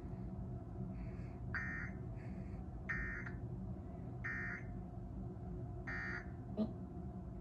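Emergency Alert System end-of-message data bursts: short, buzzy digital tones repeating about every second and a half, the code that closes the alert. A fainter second set of bursts overlaps the first two, and there is a short click near the end.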